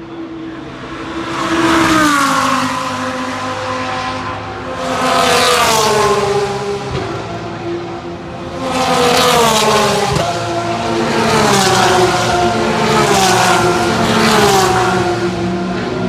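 GT3 race cars passing one after another at speed, about four loud passes, each engine note falling in pitch as the car goes by.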